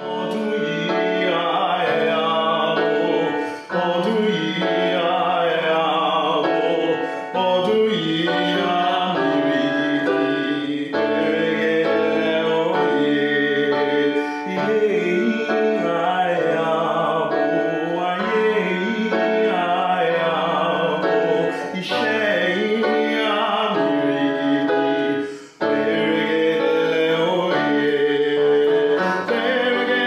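A male voice singing a song over piano accompaniment, starting abruptly from silence.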